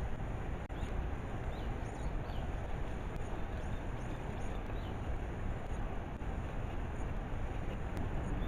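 Steady outdoor noise with a heavy low rumble, and faint bird chirps in the first few seconds.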